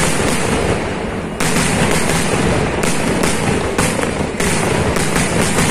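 Temple-festival fireworks firing in a rapid, unbroken barrage: many overlapping loud bangs and cracks from aerial shells and ground charges, thinning briefly twice and then resuming.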